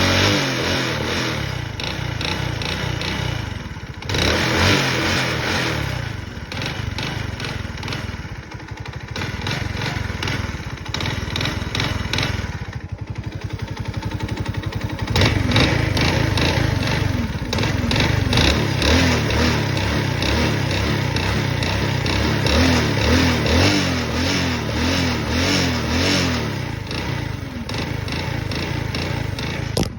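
Virago Alpha-type moped's small single-cylinder four-stroke engine running and revved up and down a few times, with a knock from the engine.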